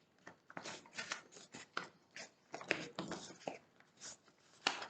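A sheet of A4 paper being folded and creased by hand in origami, with a quick run of soft irregular crinkles and rustles.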